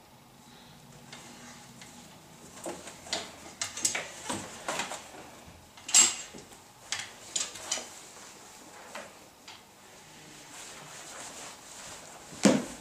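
Clothes hangers clacking and rattling on a wardrobe rail as leather boots are lifted off them, a string of sharp clicks with the sharpest about six seconds in. Near the end comes a single heavier thump.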